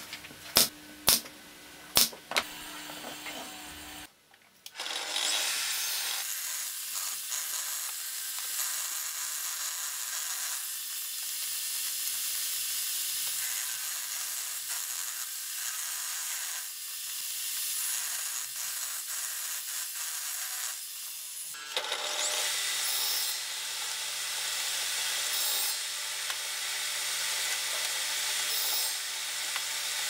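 Four sharp knocks about half a second apart, then a handheld power tool working wood: a steady, hissy run that breaks off briefly past the middle and starts again.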